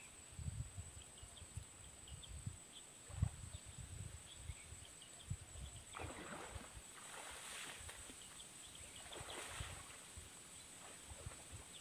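Water swishing and splashing as a person swims and wades through a deep pond, with two longer swishes about six and nine seconds in. Low rumbling buffets of wind on the microphone run under it.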